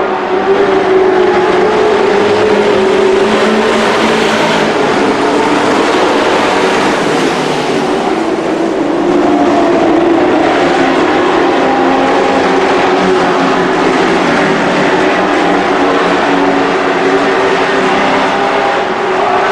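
Several dirt-oval race trucks running hard around the track together. Their engine note rises and falls as the pack goes through the turns and down the straights.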